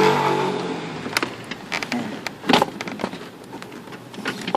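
Scattered sharp clicks and knocks of a car door handle and its latch rod being worked into place inside the door, the loudest about two and a half seconds in.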